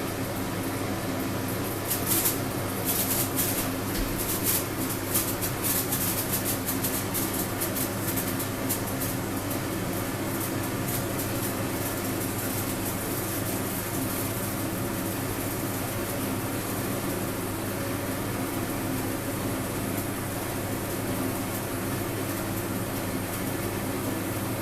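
Senkō hanabi, a Japanese incense-stick sparkler, crackling: a rapid patter of faint, sharp spark clicks starts about two seconds in and grows sparse after about nine seconds. A steady low hum runs underneath.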